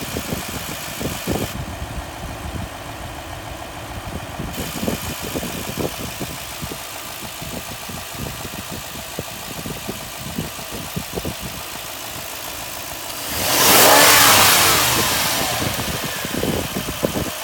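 Toyota 2UZ-FE 4.7 petrol V8 idling with an irregular knocking from the front of the engine, which the owner attributes to a new timing-belt tensioner pulley. About thirteen seconds in, the engine is revved once, rising and then falling back to idle.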